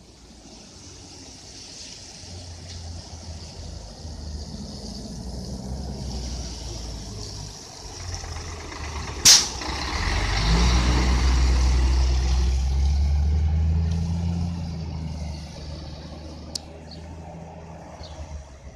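Scania fire truck's diesel engine running and building up, with one short sharp air-brake hiss about nine seconds in. The engine is then at its loudest for a few seconds before dropping back, as the truck pulls away or drives past.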